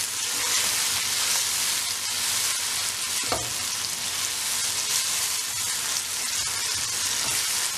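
Chopped tomatoes, onion and spices sizzling steadily in hot oil in a non-stick wok on high heat, with a silicone spatula stirring and scraping through them. The tomatoes are releasing their water into the oil as the masala fries.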